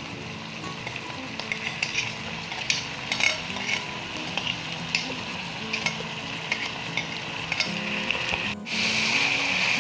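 Minced meat sizzling in hot oil in a metal pan, with a wooden spatula stirring and knocking against the pan in scattered ticks. After a brief break near the end, the sizzle comes back louder.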